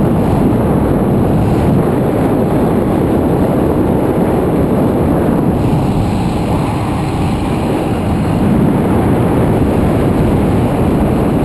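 Wind rushing over the microphone on a moving motorbike, with the engine and road noise running steadily underneath.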